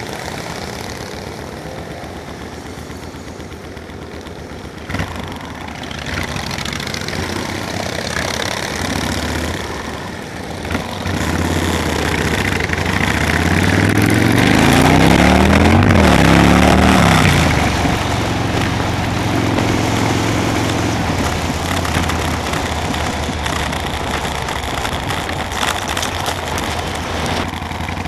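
Motorcycle engines running on the road over a steady rushing noise. About halfway through, the engine sound swells for several seconds as pitches rise and fall, then settles back to a steady run.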